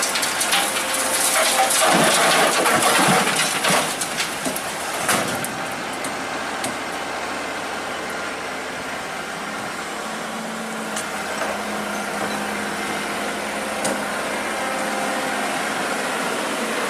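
Diesel excavator running, with loud scraping and clanking in the first few seconds, then a steadier engine hum.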